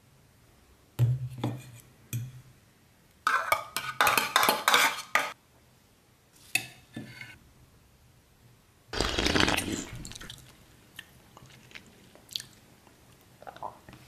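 A metal spoon knocking, scraping and clinking in an open tin can while scooping thick sauce, in separate bursts with quiet gaps; a cluster of quick clicks a few seconds in, and a louder, longer noisy sound lasting about a second past the middle.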